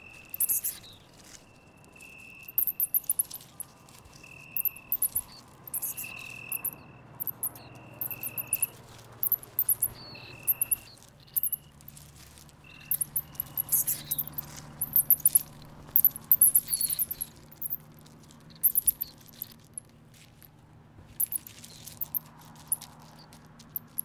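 Shrews squeaking and chittering shrilly in quick clusters as two territorial rivals fight, loudest a little past halfway. A repeated even chirp, about one a second, runs beneath for roughly the first half.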